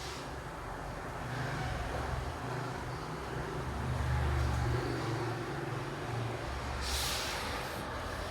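Low, steady rumble of road traffic, with a short hiss about seven seconds in.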